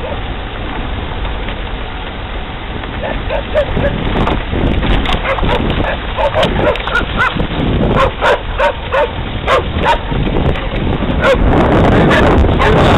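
A dog barking and yipping in a quick string of short calls, starting a few seconds in, over the steady low rumble of a running car.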